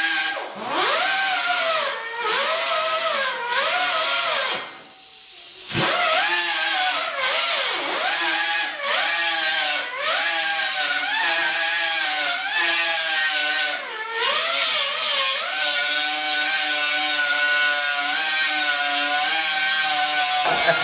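Electric angle grinder working sheet-steel body metal, its motor pitch sagging each time the disc bites and rising again as it is eased off. It stops for about a second roughly five seconds in, then spins back up and runs more evenly in the last few seconds.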